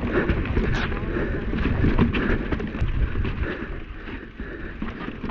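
A 29er mountain bike riding down a wet, rocky trail: a continuous low rumble of tyres rolling over dirt and rock, with frequent rattles and clicks from the bike.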